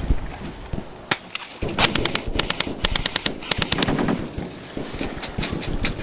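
Airsoft guns firing: rapid bursts of sharp clicks and pops, machine-gun style, with some single shots in between.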